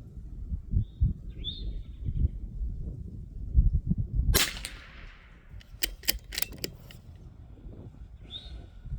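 A single sharp gunshot about four seconds in, with a trailing echo, followed a second and a half later by a quick run of sharp clicks. A bird chirps briefly twice.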